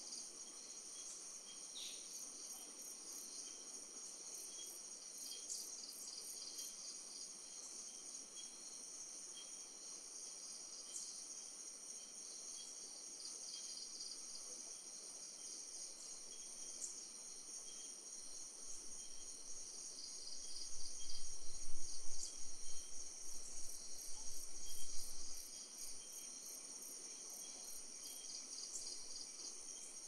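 Night chorus of crickets and other insects, a steady high-pitched trilling. From about twenty seconds in, an irregular low rumble swells for some five seconds and then fades, the loudest sound here.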